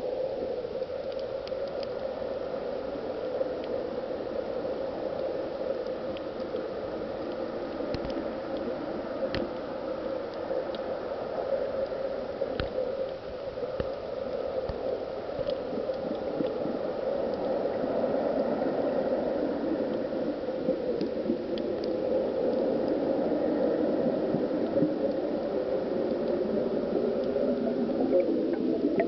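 Muffled underwater sound of streams of volcanic gas bubbles rising from vents in the seafloor: a steady bubbling and gurgling, with scattered sharp clicks.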